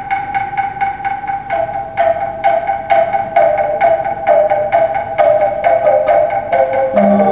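Togunggak, tuned bamboo percussion tubes struck in a quick, even interlocking rhythm of about four strokes a second. One note repeats steadily while a second, lower note shifts between a few pitches.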